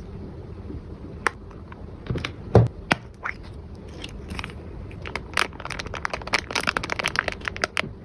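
Packaging being handled, with crinkling, crackling and clicking and a sharp knock about two and a half seconds in. The crackling grows denser in the second half.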